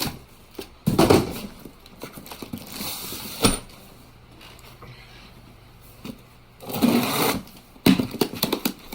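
A mechanic's tool set being unpacked by hand: packaging rustling and a run of clicks and clinks of metal sockets and tools, with one sharp click about three and a half seconds in.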